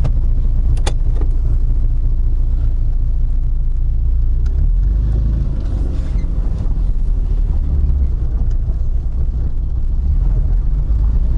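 VAZ 2110's 8-valve petrol engine pulling the car along in first gear, heard from inside the cabin as a loud, steady low rumble of engine and road noise. A single sharp click comes about a second in.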